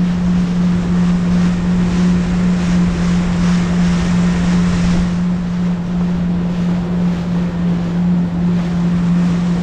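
Jet ski engine running at a steady speed with a constant drone, with wind buffeting the microphone and the rush of water.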